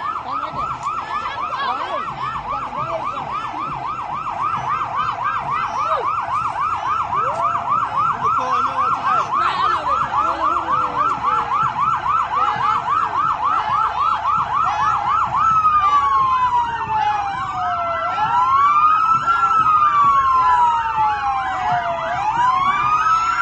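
Emergency vehicle sirens sounding a fast yelp, about three sweeps a second, that changes about two-thirds of the way through to a slow rising-and-falling wail, with more than one siren wailing together and growing louder near the end.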